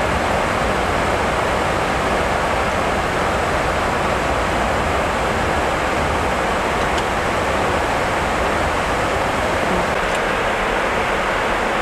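Steady rushing air noise on the flight deck of an Airbus A340 in cruise flight: airflow over the cockpit and its ventilation, unchanging throughout.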